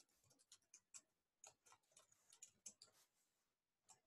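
Faint typing on a computer keyboard: irregular quick key clicks, a few a second, pausing briefly near the end.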